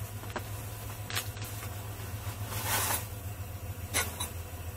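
Steady low hum and hiss, with a few short rustles and soft clicks about a second in, near the middle and near the end.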